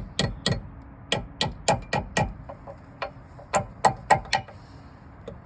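Light metal-on-metal tapping on a brake pad hardware clip to seat it in the caliper bracket: a series of sharp, ringing taps in quick runs of three to five, about three or four a second.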